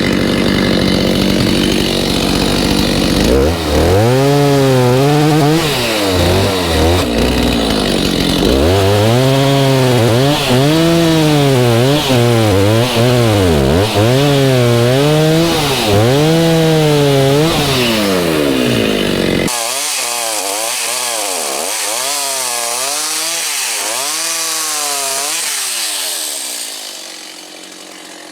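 Chainsaw cutting through a thick walnut log. After a steady first few seconds, the engine note rises and dips over and over, about once a second, as the chain bites and frees in the wood. The sound turns thinner and quieter about two thirds through and fades away near the end.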